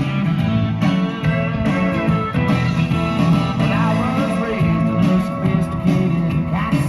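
Background music: a song led by guitar, playing steadily.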